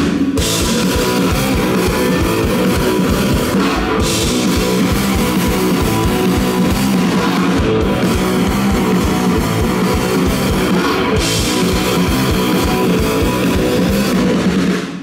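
A rock band playing live and loud: electric guitars over a fast, driving drumbeat, stopping abruptly at the very end.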